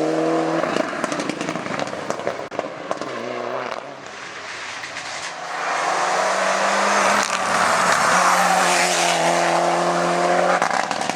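Hillclimb race car engine at high revs. The engine note breaks off about half a second in, then builds again and grows louder, holding a steady high note through the second half.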